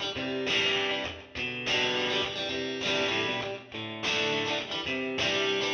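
Background music: strummed guitar chords struck again and again in a steady rhythm.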